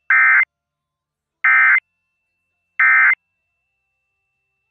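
EAS end-of-message (EOM) tones: three short, identical bursts of SAME digital data warble, about a second and a half apart, signalling the end of the alert message.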